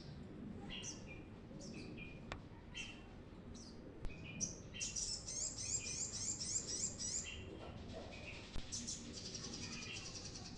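Brown-throated sunbird singing: short high chirps, then a long, rapid, high trill lasting about two seconds in the middle, and another fast trill starting near the end.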